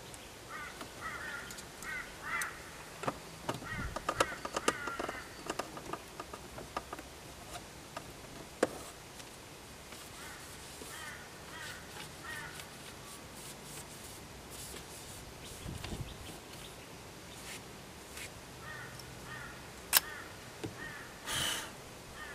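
Scattered clicks and taps of a screwdriver against the plastic dashboard trim around the instrument cluster, with one sharp click near the end followed by a brief rustle. Behind them, a bird calls in short repeated series.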